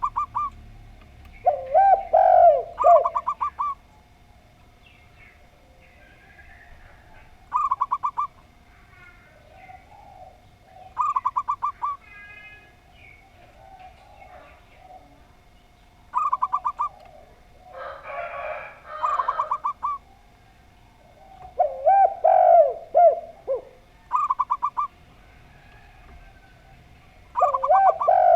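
Zebra dove and spotted dove cooing back and forth. Short, rapid trilled phrases come every few seconds, some higher and some lower in pitch, with a brief rustle about two-thirds of the way through.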